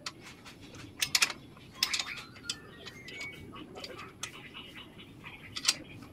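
Sharp metallic clicks and clinks at irregular intervals as a hand tool works the bolts of a car's exhaust pipe from underneath.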